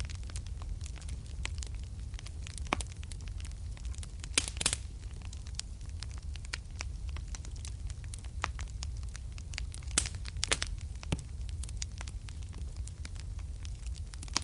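Wood fire in a fireplace burning with a steady low rumble and irregular sharp crackles and pops, a few louder pops about four and a half seconds in and again around ten seconds.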